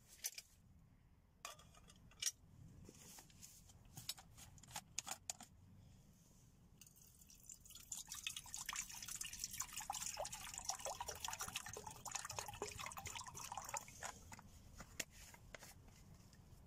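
Water poured from a plastic canteen into a metal canteen cup, splashing steadily for about seven seconds from around seven seconds in. Before the pour there are scattered clicks and knocks of handling.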